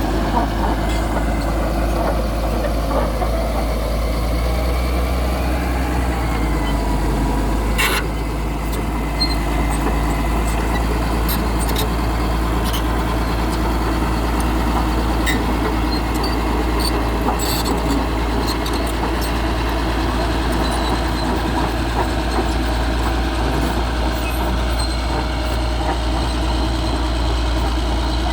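Heavy machinery running steadily: an engine's constant low hum, with a sharp knock about eight seconds in and light clicks and clatter here and there.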